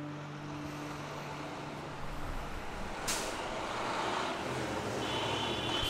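The last guitar notes fade out, then road vehicle noise rises, with one sharp hiss about three seconds in and a high steady squeal near the end.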